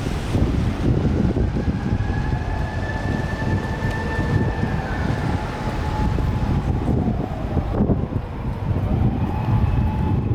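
Japanese ambulance siren, faint and drifting slowly in pitch, heard through a loud, steady low rumble of wind and traffic noise.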